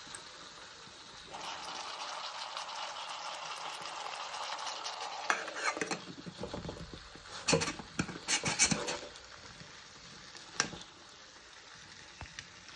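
Metal camping cook pot and lid handled on a stovetop. A steady hiss comes first. From about halfway there is a cluster of clinks and taps as the lid is pressed and twisted by its silicone knob, with one last tap a little later.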